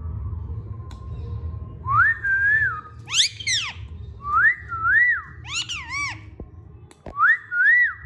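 Whistling to and from a pet Indian ringneck parakeet: a short whistled phrase that rises and then falls comes three times, about two and a half seconds apart, and sharper whistles that fall steeply in pitch come between them.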